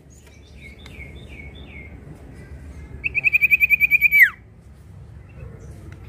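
Sirtu, a kind of iora, singing: a run of about five short down-slurred whistles, then a loud, fast trill of about a dozen notes that ends in a sharp downward slide.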